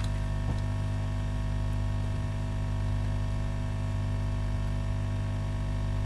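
Steady electrical mains hum with a light hiss underneath, even and unchanging throughout.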